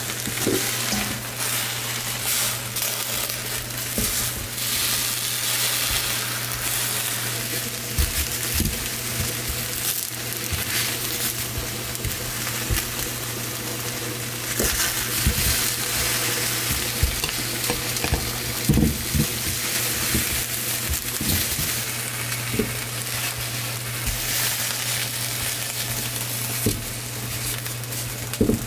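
Whole peeled onions and pieces of ginger charring directly on a hot glass stovetop, sizzling steadily, with scattered light knocks as metal tongs turn them and a steady low hum underneath.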